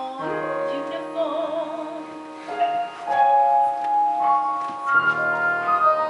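A woman singing a show tune with instrumental accompaniment, holding long notes, one of them with a wavering vibrato.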